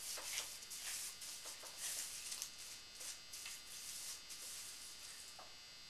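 Rubber-gloved hand rubbing crushed red pepper over the surface of a braised wild hog ham: faint, irregular rubbing and rustling strokes that die away near the end.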